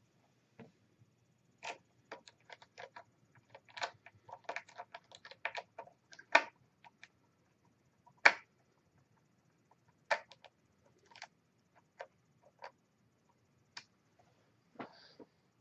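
Scattered light clicks and taps of a laptop's screen assembly and a screwdriver being handled while the screen is screwed back down. There is a busy run of clicks early on, and two sharper knocks about six and eight seconds in.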